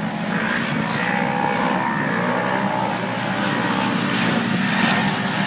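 Off-road race vehicle's engine running hard at steady speed, its pitch drifting slightly up and down.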